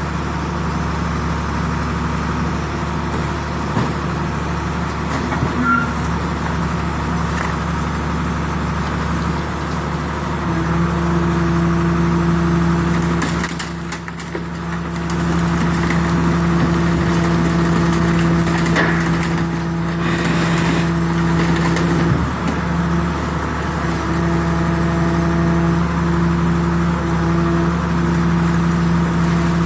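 RB 5000 baler with dual compression rams running: a steady machine drone. A steady hum is added about a third of the way in and drops out briefly around the middle and again a little later, with a few light knocks.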